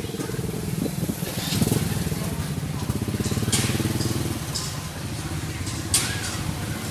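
Street traffic with a small motorbike engine running close by, louder for a few seconds in the middle, and a couple of sharp clicks.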